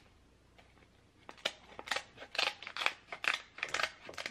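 Kitchen scissors cutting open the shell of a cooked king crab leg: a quick run of sharp snips and cracks that starts about a second in.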